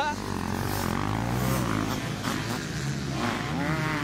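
Motocross bike engines revving hard through a corner, their pitch rising and falling several times as the riders throttle on and off.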